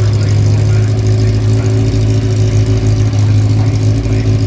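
Engine of a single-seat open-wheel racing car running at a steady idle, a loud, even drone with no revving.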